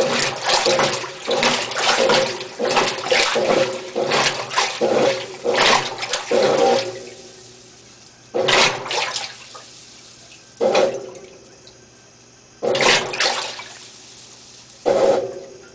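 GE Moffat washing machine churning water in its tub: quick, repeated sloshing for the first several seconds, then single surges of water about every two seconds that die away in between.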